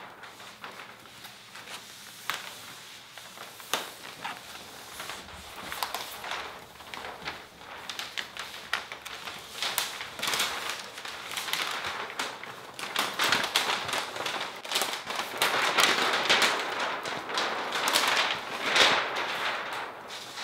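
A large sheet of Xpel Stealth paint protection film crinkling and crackling as it is handled and draped over a car's front end. It comes as a stream of sharp crackles and rustling that gets louder and busier in the second half.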